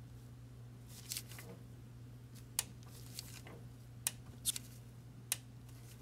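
Click-type torque wrench tightening a diesel fuel injector hold-down bolt: several short, sharp metallic clicks with soft handling noises between them, the click marking that the bolt has reached the wrench's set torque of 110 inch-pounds.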